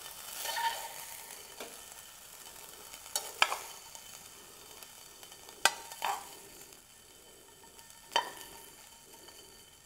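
Tongs clicking and scraping against a non-stick frying pan while fried turkey strips are lifted out, a few sharp taps standing out over a faint sizzle that slowly dies away.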